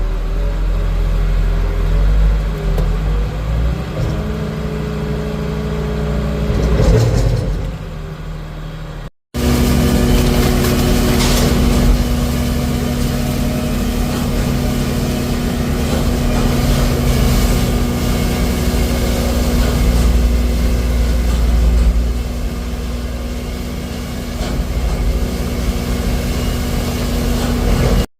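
Farm tractor engine running steadily, with a brief dropout about nine seconds in.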